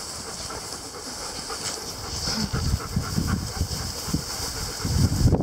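Two-month-old puppies scrambling through grass right at the microphone: irregular rustling and soft thumps that build up from about two seconds in and are loudest near the end, over a steady high hiss.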